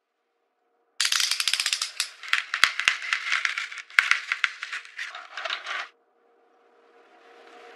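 Paper wrapping on a wooden box being slit with a utility knife and pulled away: dense crackling and rustling with a few sharp clicks for about five seconds, stopping abruptly. A faint hiss then slowly rises near the end.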